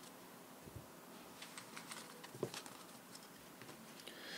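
Faint, scattered light taps and clicks of tarot cards being handled and laid down on a table, the clearest about halfway through, with a soft rustle rising near the end.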